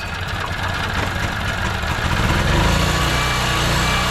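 Generac GP3300 portable generator's single-cylinder engine starting on choke. It runs unevenly at first, then picks up about two seconds in and settles into steady running.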